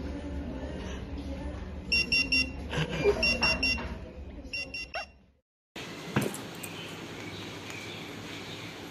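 Electronic alarm beeping in quick groups of four, three times over, with a low hum beneath. It cuts off about five seconds in, giving way to steady background noise and a single click.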